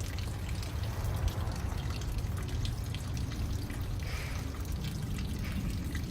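Water dripping and trickling in scattered small drops, over a steady low hum.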